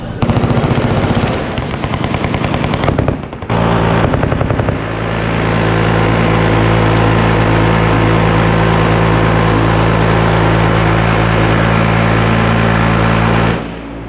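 Machine guns on a firing line. Rapid automatic bursts for the first few seconds with a short break, then about nine seconds of a minigun's continuous fire, the shots so fast they merge into a steady buzz. It cuts off suddenly near the end.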